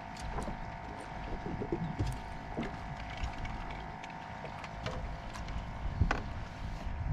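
Light knocks and handling noises of a freshly landed channel catfish being held in a fishing boat, over a steady hum, with one sharper knock about six seconds in.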